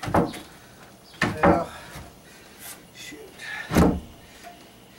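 A loose plywood deck sheet knocking and bumping as it is pushed and worked into place on the boat's frame. There are several wooden knocks: one right at the start, two close together about a second and a half in, and a loud one near four seconds.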